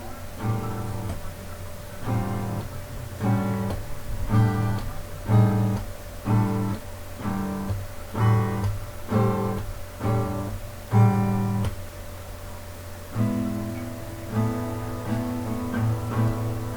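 Instrumental music on acoustic guitar: short strummed chords about once a second, a brief pause, then chords left ringing longer.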